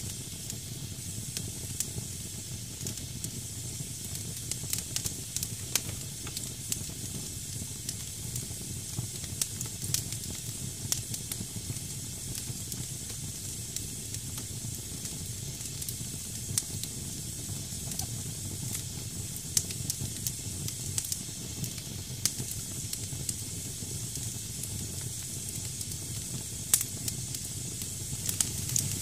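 Damp firewood burning in a fireplace, hissing steadily as moisture in the wood boils off, with scattered sharp crackles and pops.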